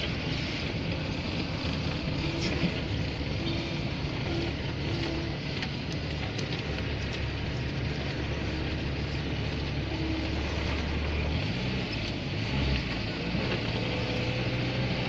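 Cab interior noise of a GAZelle van driving through town: a steady engine hum and road noise, with the engine's low note changing about twelve seconds in.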